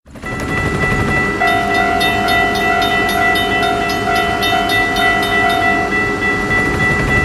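Train running: a steady rumble and rattle with held, high steady tones over it, starting suddenly after a brief silence. An extra lower tone sounds through the middle of it.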